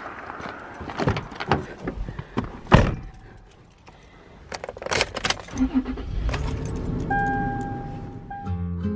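Getting into a Toyota SUV: keys jangling and clicks and knocks of the door handle and door, with a loud thump about three seconds in as the door shuts. After a short quiet spell and a few more clicks, the engine starts and runs steadily from about six seconds in, with a steady tone sounding near the end.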